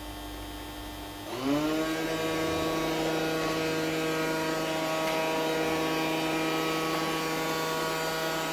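Xiaomi Mijia 1C robot vacuum-mop's motor spinning up about a second in, its pitch rising quickly, then running steadily with a whining hum. This is the noise the owner presents as a problem.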